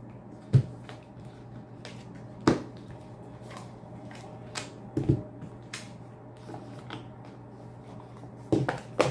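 Tarot cards being handled on a table: a few sharp, separate taps and flicks of cards, about five spread over several seconds, over a low steady hum.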